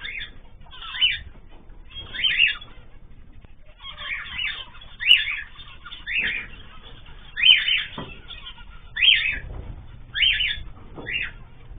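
Caged pet birds giving short, loud calls over and over, about one a second.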